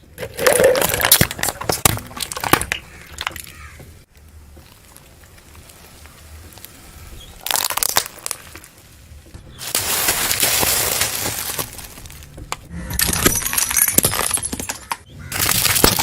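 Objects being crushed under a car's tyres: cracking and crunching in several separate bursts, with quieter gaps between them.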